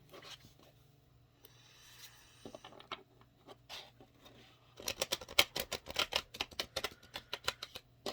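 A deck of oracle cards being shuffled by hand: a faint sliding at first, then from about five seconds in a fast run of soft card clicks and flicks.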